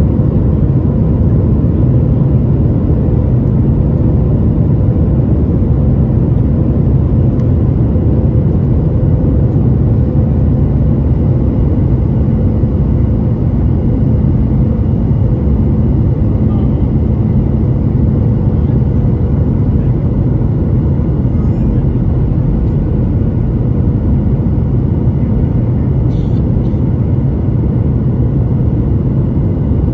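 Steady cabin noise of a jet airliner descending to land, heard from a window seat by the engine: a loud, even rumble of engine and rushing air with a faint steady hum above it.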